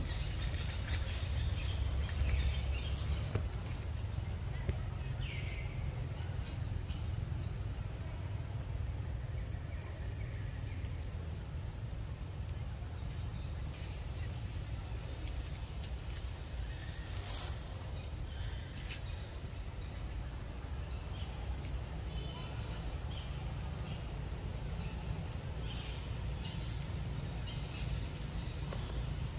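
A forest insect chorus, a steady high-pitched trill, over a low steady rumble. A single sharp click about halfway through.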